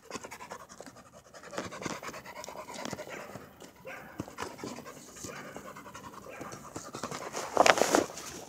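Dog panting, growing louder near the end.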